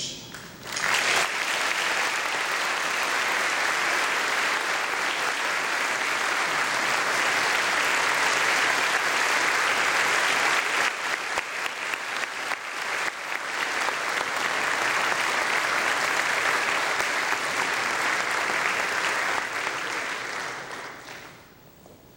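Audience applauding: one long round of clapping that starts about a second in and dies away near the end.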